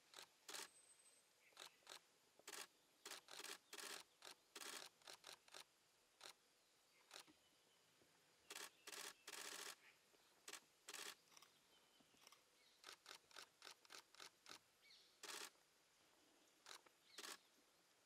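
DSLR camera shutters firing in rapid bursts, on and off, with one long continuous burst about nine seconds in.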